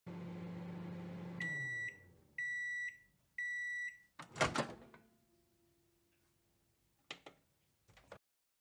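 Microwave oven running with a steady hum that winds down as the cycle ends, then three high beeps about a second apart signalling that it has finished. A loud clunk of the door being opened follows, then a few faint clicks.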